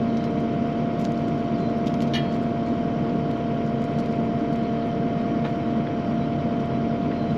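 An engine idling with a steady, unchanging hum, with a few faint clicks about one and two seconds in.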